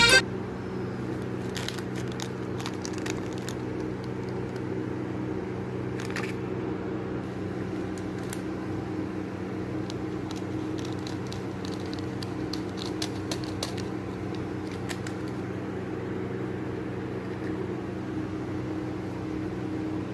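Kitchen cooking sounds: a steady mechanical hum under scattered faint crackles and light clicks.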